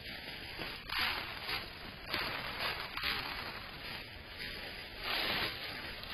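Dry fallen leaves rustling and crunching in several short bursts, with a longer burst near the end, as white-tailed deer step and forage through the leaf litter, heard through a security camera's microphone.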